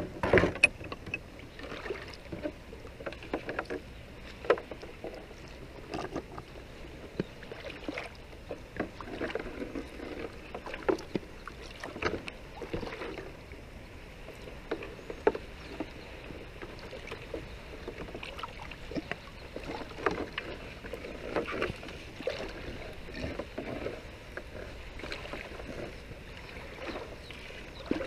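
Wet set net being hauled by hand out of shallow water into a plastic tub: water splashing and dripping off the mesh, with irregular small splashes and knocks throughout and a louder knock about half a second in.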